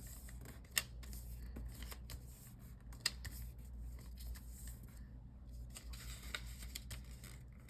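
Origami paper being folded and creased by hand: light rustling and crinkling with scattered sharp clicks, two of them stronger, about a second in and about three seconds in, over a low steady hum.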